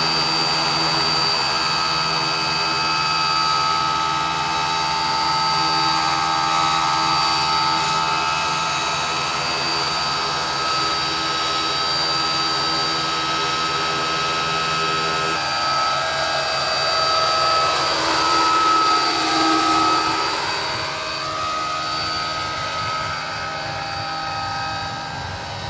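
Battery-electric scale model Westland Lynx helicopter running, with its motor whine and rotor blades turning steadily. About two-thirds of the way through, the whine dips in pitch and climbs back again.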